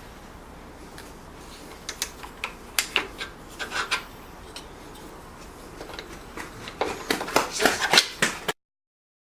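Hand work on wood: irregular scraping and rubbing strokes with light clicks, busiest near the end, then cut off suddenly.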